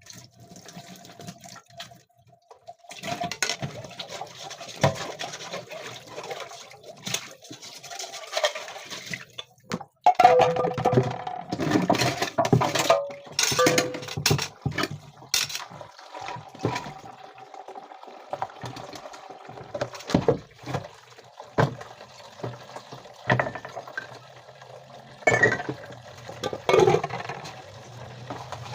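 Dishes being washed by hand: running, splashing water with irregular clinks and knocks of dishes and pots, busiest about a third of the way through.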